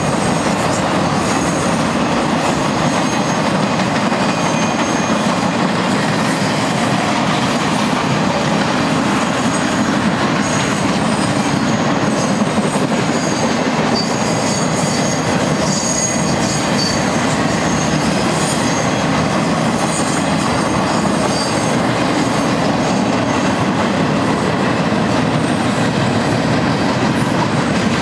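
Union Pacific maintenance-of-way freight train's cars rolling past on the rails: a loud, steady rumble of steel wheels on track, with faint high-pitched wheel squeals coming and going.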